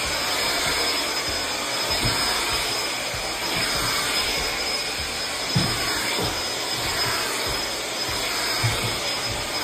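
A stick vacuum cleaner running on carpet: a steady rushing motor noise with a thin, high-pitched whine over it.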